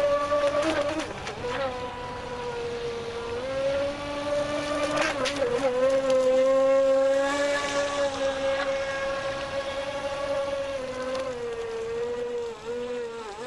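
Brushless electric motor of a Playtron Candy RC speed boat running at speed: a steady high whine. Its pitch rises a little about three seconds in and wavers lower near the end.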